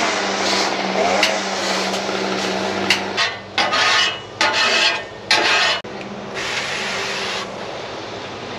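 A grill brush rasping back and forth over the steel top of a flat-top griddle. The scraping runs continuously at first, breaks into separate strokes from about three seconds in, and stops at about six seconds, leaving a quieter steady hiss.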